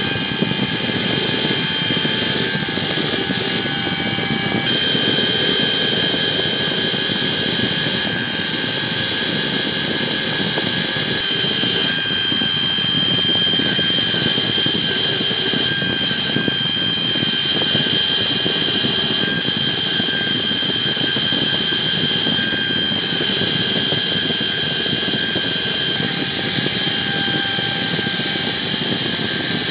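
Electric drill running steadily with a wire brush in its chuck, the spinning wire scrubbing rust off a steel hook wrench. A steady motor whine over a continuous scratchy hiss.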